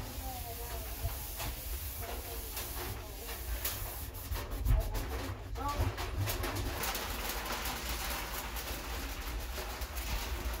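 A cloth rubbing and wiping a cupboard shelf, with small knocks and scrapes from handling, while a dove coos in the background.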